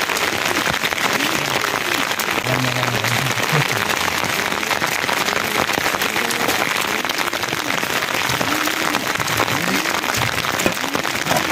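Steady rain falling: a dense, even hiss full of fine drop ticks.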